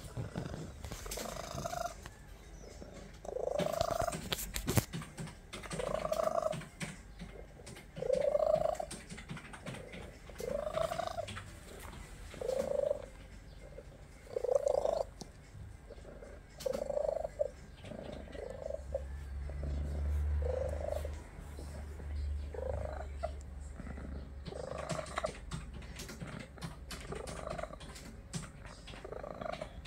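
Young ginger cat purring, the purr swelling and fading with each breath, a little over once a second; the vet says the cat breathes poorly.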